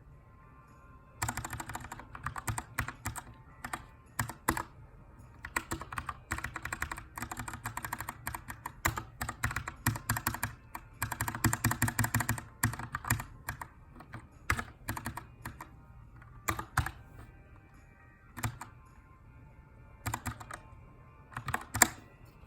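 Typing on a Keychron K2 aluminium-framed mechanical keyboard with brown switches. Fast runs of keystrokes start about a second in, then thin out in the second half to scattered single keystrokes and short bursts with pauses between them.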